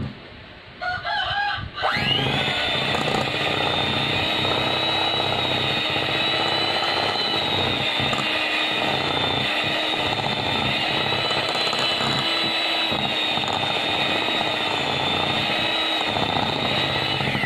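Handheld electric mixer starting about two seconds in and running steadily at one speed, its beaters working butter cookie dough in a glass bowl, then switching off near the end.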